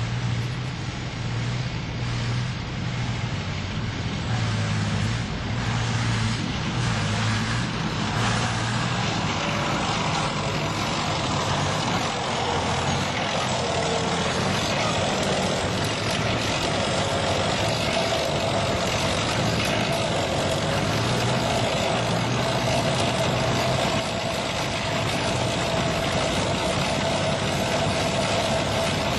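Heavy military vehicles driving by with their engines running. A pulsing low engine hum fills the first part, and a steady whine joins the engine noise from about twelve seconds in.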